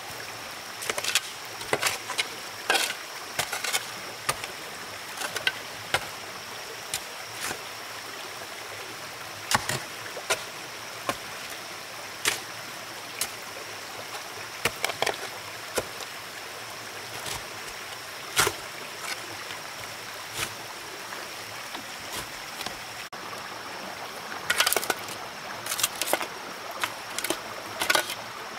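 Sharp knocks and taps at irregular intervals, a dozen or so in all and bunched together near the end, over a steady hiss and a faint high steady tone.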